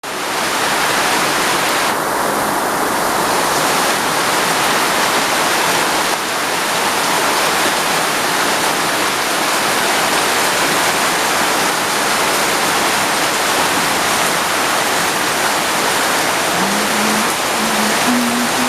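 Heavy monsoon rain falling steadily in an even, loud hiss. A few short low tones sound near the end.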